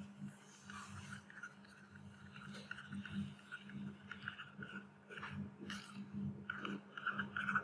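Faint, irregular scratching of a stylus writing on a tablet screen, in short strokes, over a steady low electrical hum.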